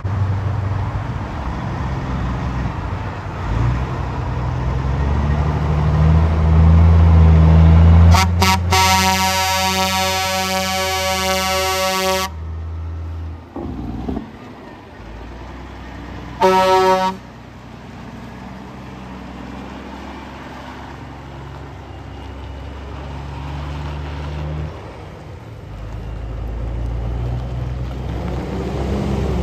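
Kenworth semi truck's diesel engine rumbling and rising in pitch as it pulls away. About eight seconds in, its air horn gives a few quick toots and then a long blast of about four seconds. About four seconds later there is one short blast. Near the end another heavy truck's engine rumbles.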